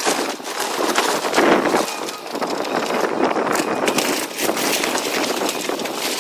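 Wooden house framing cracking and splintering as an excavator pulls it apart, with boards and debris clattering and crashing down in a continuous crunching din, loudest about a second and a half in.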